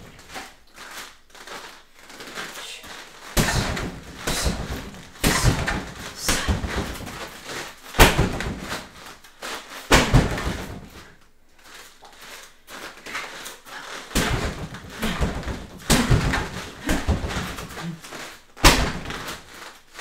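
Strikes landing on a Century freestanding heavy bag: punches, elbows and kicks thudding into the bag, with a hard hit about every two seconds and softer rustling between.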